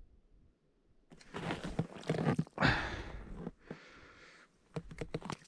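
Rustling and handling noise as an ice angler lands a small rotan (Amur sleeper) through the ice hole, coming in several short spells. A few sharp clicks follow near the end.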